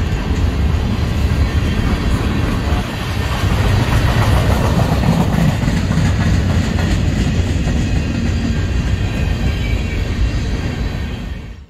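Freight train cars rolling past close by: a steady loud rumble of steel wheels on rail with clicking and clatter from the wheels and couplers. The sound cuts off suddenly near the end.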